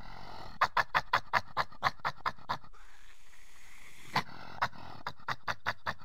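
Badger grunting: a quick run of about ten short grunts, a pause, then a second run of about seven that come faster towards the end, over a steady background hiss.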